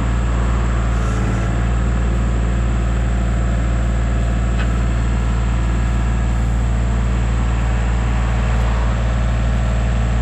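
John Deere 3025E compact tractor's diesel engine, which drives the 340B backhoe, idling steadily with a low hum.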